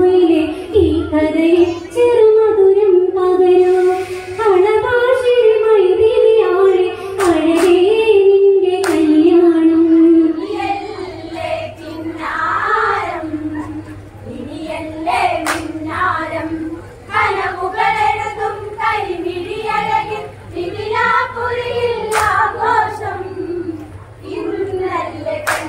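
A group singing an Onamkali song in Malayalam, one melody line carried by the voices together, with occasional sharp hand claps, a few at a time.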